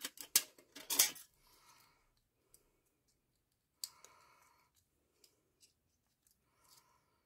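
Scissors snipping through thin aluminium drinks-can sheet: a quick run of sharp snips in the first second, then a single snip about four seconds in.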